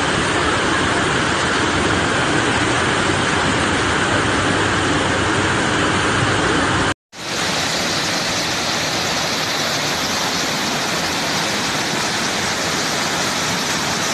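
Fast-flowing flash-flood water rushing steadily, with heavy rain falling in the first part. The sound drops out briefly about seven seconds in, then the steady rushing of the floodwater torrent carries on.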